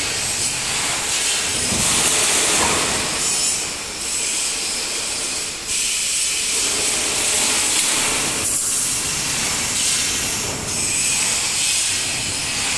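Wire mesh welding machine line running: a steady, loud hissing machine noise that shifts in level every two or three seconds, rising suddenly about six seconds in.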